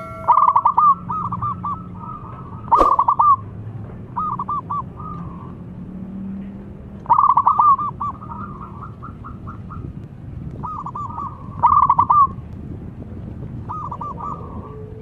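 Local zebra dove (perkutut) calling: quick runs of short cooing notes, repeated every one to three seconds. A sharp click sounds once, about three seconds in.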